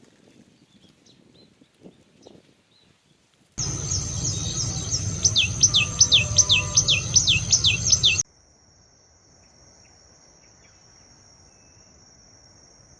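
Common tailorbird calling: a fast series of sharp notes, each falling in pitch, about three a second, over a steady high insect buzz. It begins abruptly a few seconds in and cuts off about eight seconds in, leaving only the faint insect buzz.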